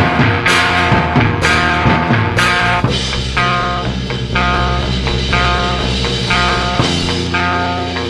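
Loud rock band recording with electric guitar, bass and drums. Heavy crashing hits land about once a second for the first three seconds, then a repeated guitar figure pulses about twice a second.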